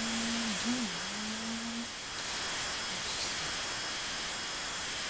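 Constant hiss from a webcam microphone's noise floor, with a young woman humming on one wavering note for the first two seconds.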